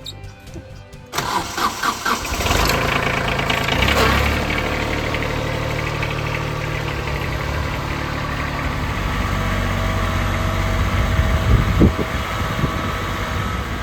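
Gasoline chainsaw starting up about a second in, then running steadily at idle with a brief rise in revs around four seconds in.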